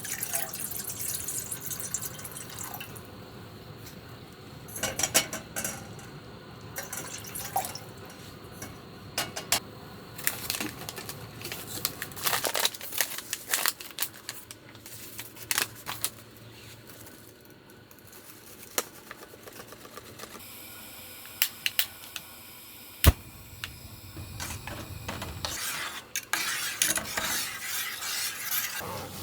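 Camp cookware and utensils clinking and knocking as they are handled, in irregular clusters over a steady low hiss, with one sharp click about three-quarters of the way through.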